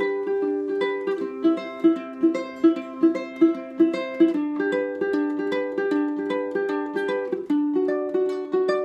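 Ukulele fingerpicked slowly and evenly, one note at a time in a repeating thumb, index, middle, index pattern, about two or three notes a second. The chord changes about every three seconds.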